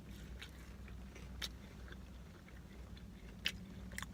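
Close-mic chewing of fast food with wet mouth-smacking, a few sharp clicks among the chews, over a steady low hum.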